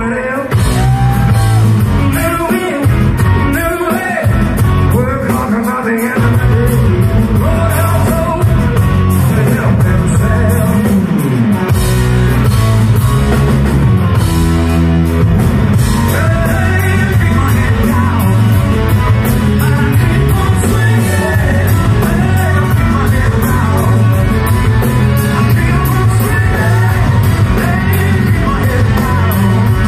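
Live rock band playing loud: electric guitars and drums with a male singer's voice over them.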